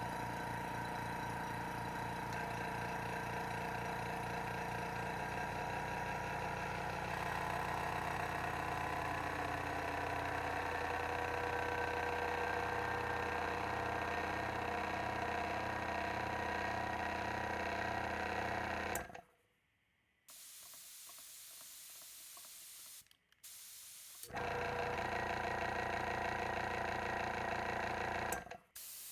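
Small dedicated airbrush compressor running steadily as it fills its tank, a hum whose pitch shifts a few seconds in. It cuts off suddenly about two-thirds of the way through, followed by quieter stretches of hiss that stop and start abruptly.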